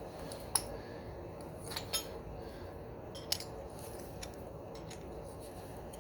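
A few sharp metallic clicks and clinks of small tools or parts being handled during carburetor work, over a steady low hum.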